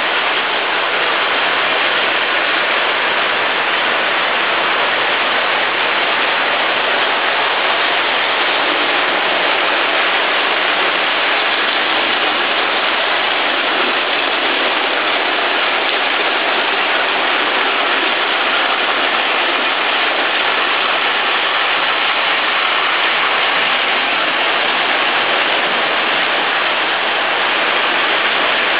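Lionel O-gauge model trains running on three-rail steel track: a steady, even rushing whir of wheels and motors that does not change.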